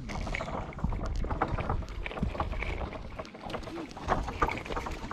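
Wind rumbling on the microphone, with many short crunching clicks throughout.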